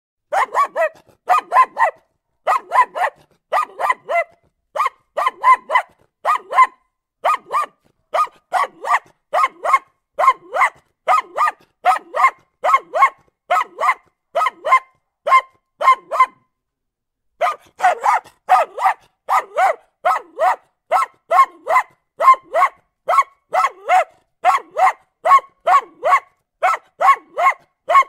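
A dog barking over and over in quick clusters of two or three sharp barks, with a pause of about a second a little past halfway.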